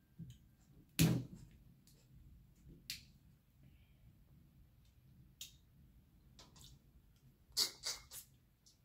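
Crab shell being handled and cracked by hand while eating: scattered sharp clicks and knocks, the loudest about a second in, with a quick cluster of clicks near the end.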